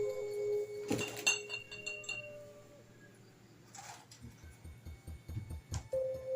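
A droning ambient music tone breaks off with a couple of sharp clinks about a second in. It then fades almost to quiet, with a few faint low thumps, and the drone returns near the end.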